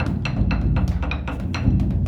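Large Buddhist temple dharma drum (beopgo) beaten with two sticks in a fast, steady run of strokes, several a second, over a continuous deep boom.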